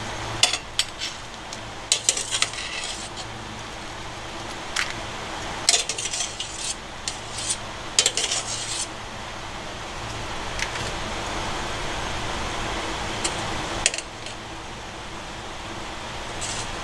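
A metal skimmer ladle clinking and scraping against the inside of a stainless steel pot, in scattered clusters of sharp clinks, over a steady hiss.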